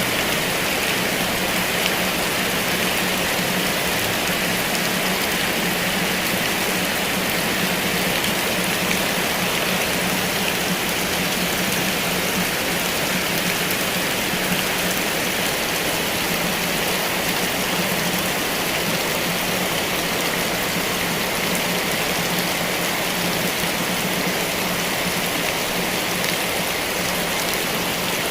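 Heavy rain falling steadily, an even dense hiss with no thunder, over a low steady hum.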